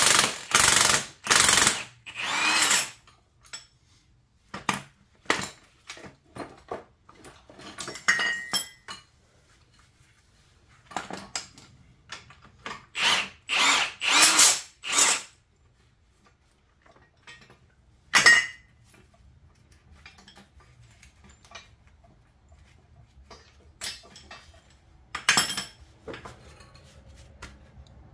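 Power tool run in repeated short bursts of about a second each, in a few clusters with pauses and small knocks between.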